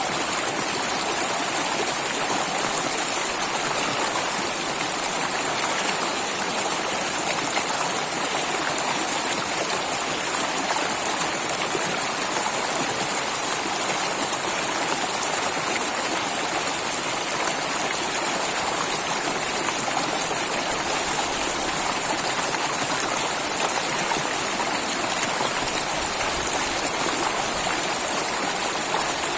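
Flowing water running steadily, an even rushing hiss with no breaks.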